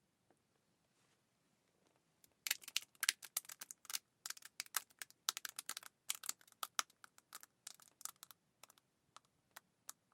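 A rapid, irregular series of sharp clicks and crackles, starting about two seconds in and thinning out near the end.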